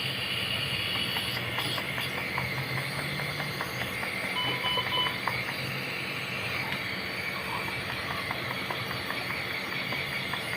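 Steady hiss and low hum of NICU equipment, with three short electronic beeps from a patient monitor about four and a half seconds in.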